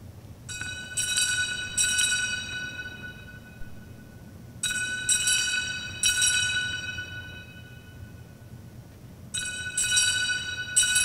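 Altar bells rung at the elevation of the chalice: three rounds of about three quick strikes each, a few seconds apart, every strike ringing out with a bright, high tone that fades slowly.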